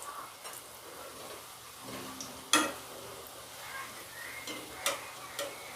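Lentil fritters (dal bora) sizzling in hot oil in a kadai, with a few sharp clinks of a utensil against the pan, the loudest about two and a half seconds in.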